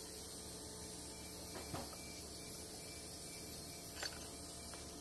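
Low steady workshop hum, with a single light click about four seconds in.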